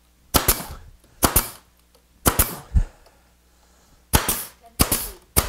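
Grex 1850GB 18-gauge pneumatic brad nailer firing brads into a plywood cart frame: about seven sharp shots, roughly one a second, each with a quick burst of exhaust air.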